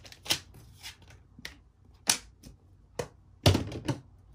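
Sharp clicks and taps of a plastic tool-kit bag holding small plastic diamond-painting tools being handled and set down on a tabletop, with a heavier knock about three and a half seconds in.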